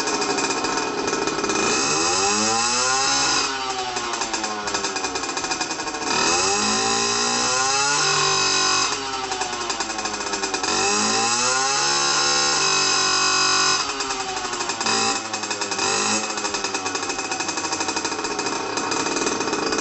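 Yamaha PW50's 49cc two-stroke single-cylinder engine being revved through its exhaust pipe, the pitch rising and falling back several times as the throttle is blipped.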